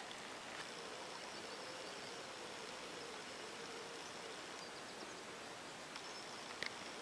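Faint rural outdoor ambience: a steady low hiss with a faint wavering tone through the first half, and a small click near the end.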